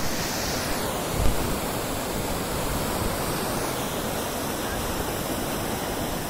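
Floodwater rushing and churning through a broken earthen dam gate, a steady, loud wash of water noise. A brief thump comes about a second in.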